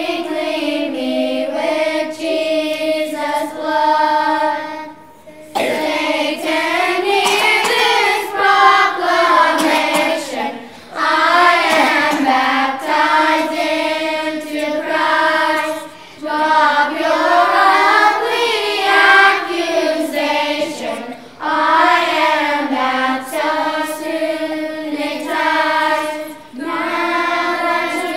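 Children's choir singing a hymn in phrases of about five seconds, with short breath pauses between them.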